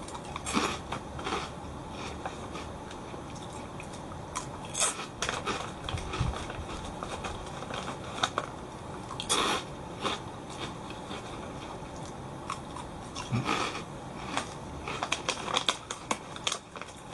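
A person biting and chewing crisp Calbee Kappa Ebisen prawn crackers, with irregular crunches. Near the end the foil snack bag crinkles as a hand reaches in for another.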